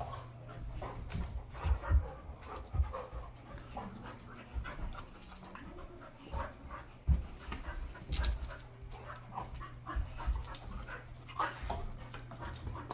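Two dogs play-wrestling: panting, with irregular short knocks and scuffles from their bodies and paws.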